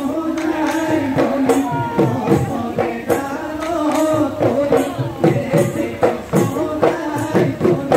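Bihu folk music: a singing voice over repeated drum beats and jingling hand percussion.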